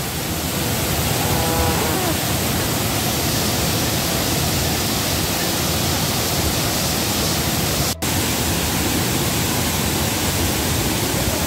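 Steady rush of waterfall and fast-flowing water, an even noise that barely changes, with a split-second dropout about eight seconds in.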